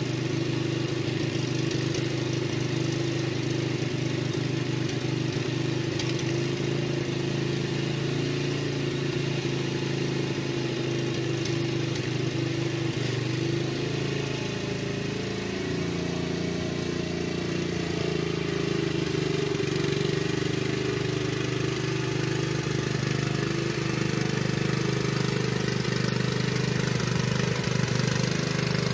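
Riding lawn mower engine running steadily, getting a little louder near the end as the mower comes closer.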